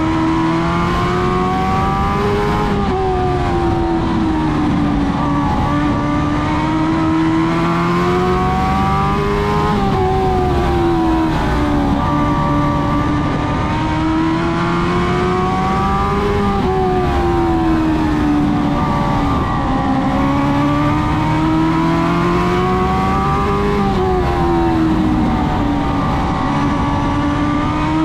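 Dwarf race car engine running hard on track, its pitch climbing as it revs out and dropping as it backs off, in a rise-and-fall cycle about every seven seconds, the pattern of lapping a short oval.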